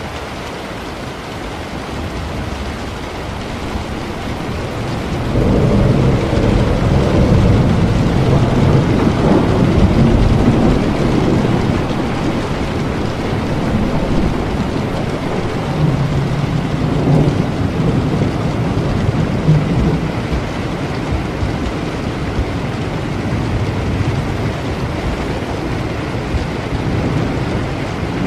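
Steady rain with a long, rolling thunder rumble that swells about five seconds in and dies away unevenly over the next fifteen seconds.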